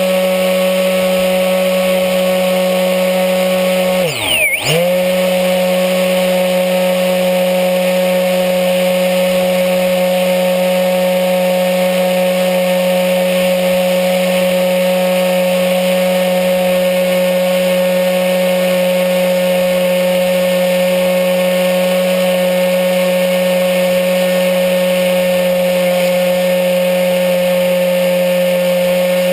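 Electric motor and APC 6x4E propeller of a HobbyKing Bixler RC plane, recorded on board, whining steadily at a fixed pitch. About four seconds in the throttle is cut for a moment, the pitch dives, and the motor spools straight back up.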